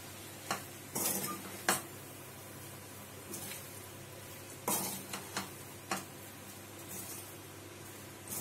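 A steel spoon stirring and tossing sabudana khichdi in a stainless-steel kadai, scraping and clinking against the pan at uneven intervals of about half a second to a second and a half, over a faint sizzle of the roasting mixture.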